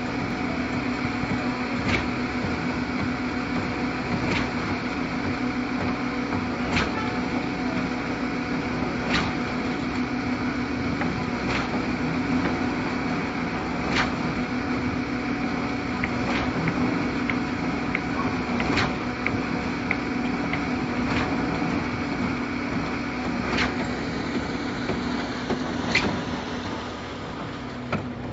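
Concrete mixer pump running steadily, with a sharp knock about every two and a half seconds from its pumping strokes.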